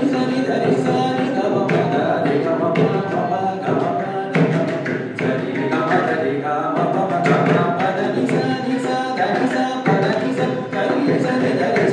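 Carnatic music: a male voice singing with violin, while mridangam and ghatam keep up dense, quick drum strokes.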